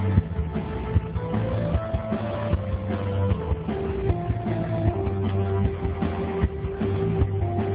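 Synth-pop band playing live on stage: keyboards carrying a held melody over steady bass and drums, heard from the audience.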